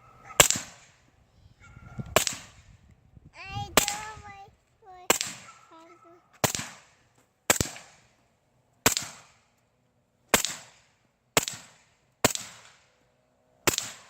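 Suppressed Sig MCX rifle in .300 Blackout firing eleven single shots at an uneven pace, roughly one every second to second and a half.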